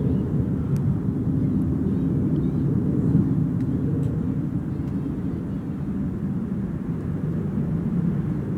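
A steady, jet-like low rumble from overhead, slowly getting quieter; its source is unidentified, and the recorder insists it is not a plane.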